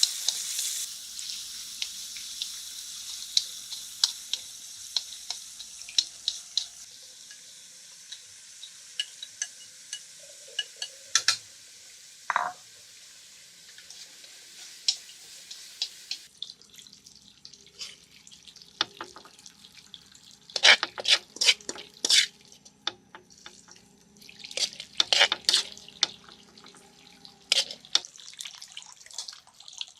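Food frying in a pan, a high sizzling hiss with scattered clicks of stirring, dying away and stopping abruptly about halfway through. Then scattered clinks and splashes of water, busiest around the last third.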